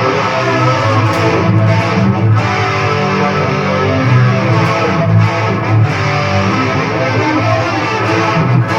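Multitrack guitar recording playing back, two guitar tracks layered with reverb and echo. The reverb makes one part sit a little ahead of where it should be.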